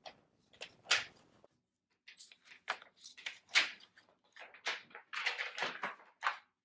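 Rustling and crinkling as plastic packaging and felt play pieces are handled on a table, in a string of short, irregular bursts.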